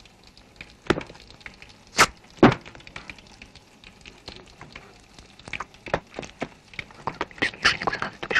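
Three sharp knocks: one about a second in, then two close together about a second later. After them come scattered fainter clicks and taps that grow busier near the end.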